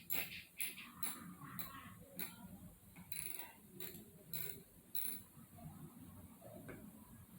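Sharp metal clicks of a hand wrench working a wheel nut on an RC truck, about two clicks a second for roughly five seconds, then only a few scattered small knocks.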